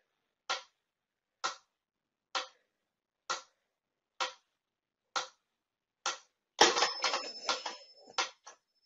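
A mechanical pyramid metronome ticking at a steady slow tempo, about one tick a second. Near the end there are a couple of seconds of louder, irregular knocking and rustling.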